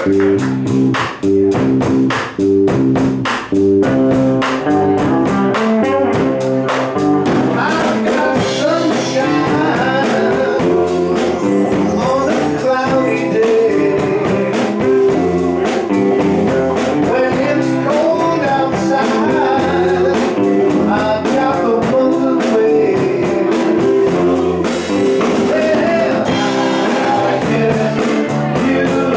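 Live band playing a blues-rock number: guitars and a steady drumbeat, with singing.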